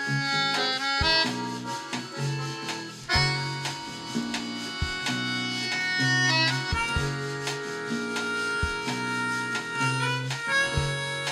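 Instrumental music: held melody notes over a bass line that moves in a steady, bouncing beat, with a light knock every couple of seconds.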